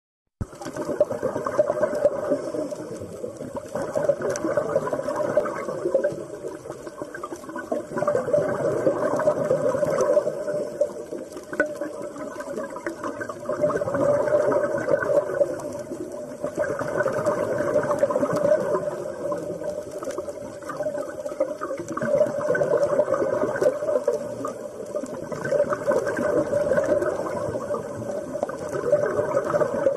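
Underwater bubbling and gurgling noise that swells and fades roughly every four seconds.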